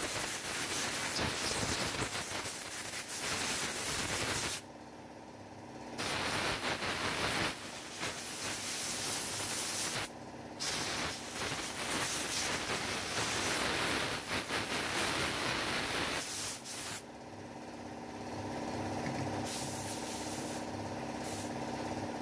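Compressed-air blow gun hissing in long blasts as it blows dirt off the blade of a cordless hedge trimmer. The air stops briefly three times, about four and a half, ten and seventeen seconds in, leaving a steady machine hum.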